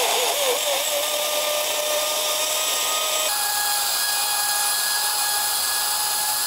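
Countertop electric blender running, pureeing shallots and ginger with water: a loud, steady motor whir whose pitch steps up about three seconds in.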